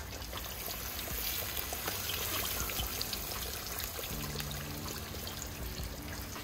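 Flour-coated tilapia pieces deep-frying in hot oil in a cast-iron pot: a steady sizzle with fine crackling. A faint low hum joins about four seconds in.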